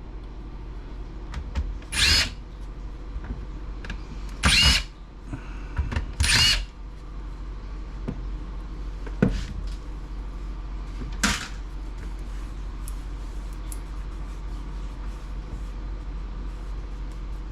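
Power drill-driver spinning in short bursts, three about two seconds apart, backing screws out of a plastic laptop dock, then a couple of brief knocks.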